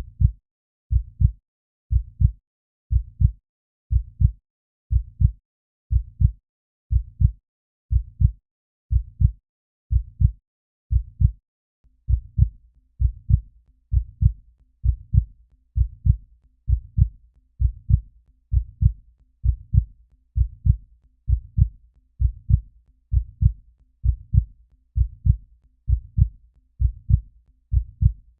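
Heartbeat sound effect: low double thumps (lub-dub), about one beat a second, quickening about twelve seconds in to roughly one and a half beats a second.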